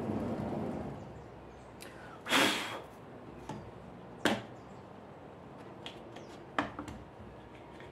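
Hands handling a small engraved plywood workpiece on a wooden work table: a short rough scraping rustle about two seconds in, then two sharp knocks and a few light taps.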